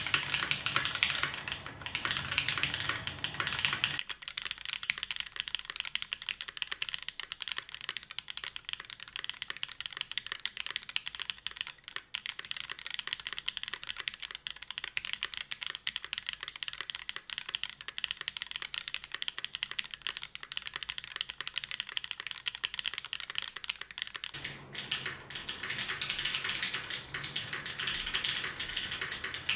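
Fast, continuous typing on a custom mechanical keyboard (NRD Kaze case, aluminium plate, BCP switches lubed with 205g0, GMK keycaps): a dense, unbroken stream of key clacks. From about 4 seconds in until about 24 seconds in the low end drops out, so the clacks sound thinner.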